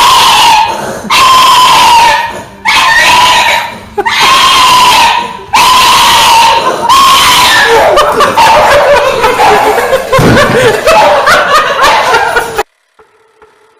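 A dog howling in a series of long, very loud cries, each held for a second or so with short breaks. Near the end the cries turn wavering and lower before cutting off suddenly.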